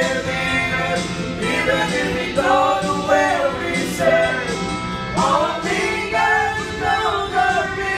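A group of men singing karaoke into a microphone over a recorded backing track, holding long sung notes.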